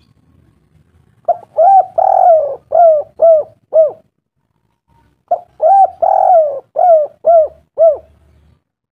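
A bird calling: two like phrases of about six short, arched notes each, the third note in each phrase longer than the rest.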